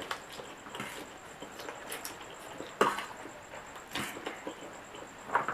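Close-up eating sounds: a mouth chewing and smacking on fried instant noodles, a scattered patter of small wet clicks, with two sharper clicks about three and four seconds in.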